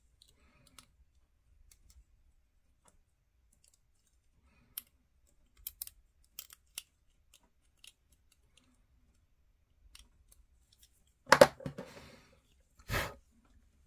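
Faint, sparse clicks and scrapes of a hobby knife blade trimming a small plastic miniature shoulder pad held in the fingers. About eleven seconds in there is a louder knock with a short rattle, and a second knock follows about a second and a half later.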